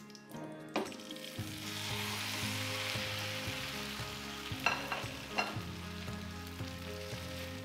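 Okonomiyaki batter of cabbage, chicken and egg sizzling as it goes into a hot frying pan on a gas burner. The sizzle swells about a second in, and there are three sharp knocks, one early and two close together past the middle.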